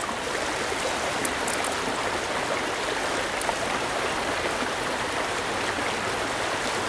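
Rushing water of a fast, rocky stream: a steady, even hiss.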